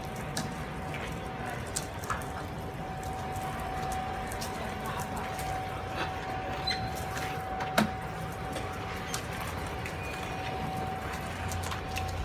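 Heli AC16 electric stand-on pallet stacker driving, with a steady high-pitched whine and scattered sharp clicks and knocks; the loudest click comes about eight seconds in.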